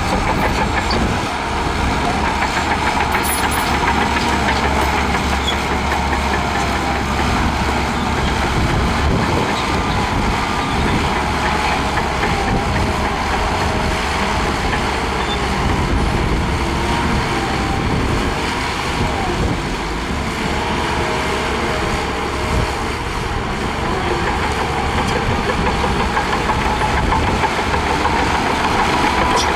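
Diesel engine of a Shantui DH17C2 bulldozer running steadily while pushing sand, with a faint steady whine over it.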